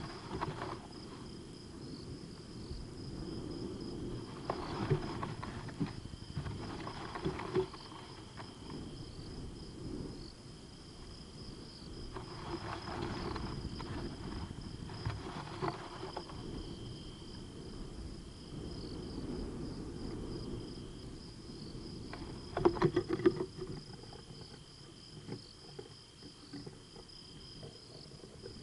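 Crickets trilling steadily at two pitches, with several bursts of scratching and rustling from a dormouse scrabbling about a mesh feeder on a tree trunk. The loudest burst comes a few seconds before the end.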